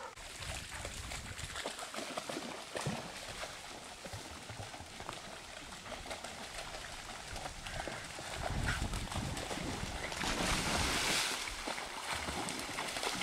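Dogs wading and splashing through a shallow, running stream. The splashing grows louder past the middle and is loudest about ten seconds in.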